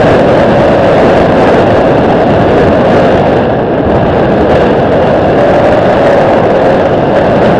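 Airbus A320 airliner on final approach with its gear down, its jet engines giving a loud, steady rushing roar with a hum running through it.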